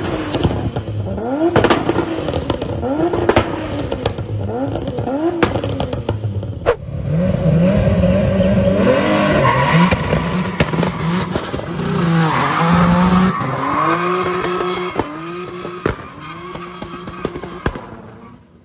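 Toyota Supra MK5 with a swapped-in 2JZ straight-six free-revving, blipped roughly once a second with the pitch rising and falling each time. Then a car doing donuts, its engine held at high revs and wavering while the tyres squeal; this fades toward the end.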